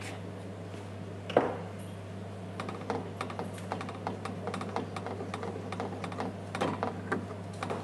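Metal utensil stirring a thick soup in a stainless steel pot, giving light, irregular clicks as it knocks against the pot's side, with one louder knock about a second and a half in.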